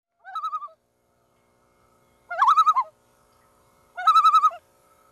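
A bird giving three short quavering calls, each wavering rapidly in pitch; the second and third are louder than the first.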